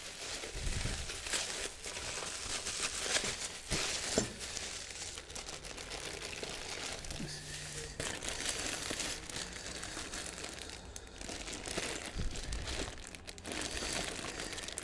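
Bubble wrap and clear plastic bags crinkling and rustling as small parts are unwrapped by hand, in an irregular run of crackles.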